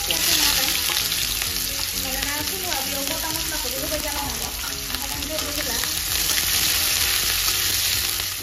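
Sliced onions frying in hot oil in a steel kadai: a loud, steady sizzle, with a steel spatula stirring and scraping them around the pan. The sizzle stops abruptly at the end.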